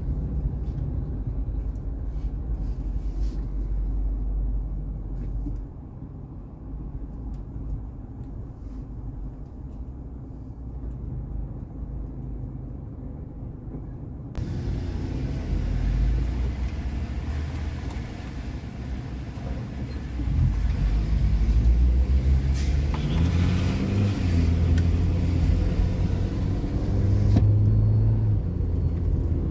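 Car engine and tyre rumble heard from inside the cabin. It is low and quieter while the car creeps and stops in the toll-gate queue. About halfway through, a steady hiss suddenly joins. Near the end the engine gets louder and its pitch rises as the car pulls away and accelerates.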